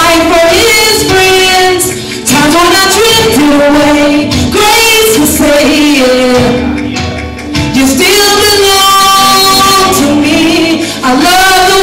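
A gospel song with a woman's lead voice singing long held phrases over accompaniment, with short breaths between phrases about two seconds in and again past the middle.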